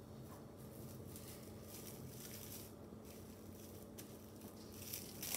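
Faint crinkling and rustling of plastic cling wrap as hands press a ball of cookie dough flat on it, getting louder near the end.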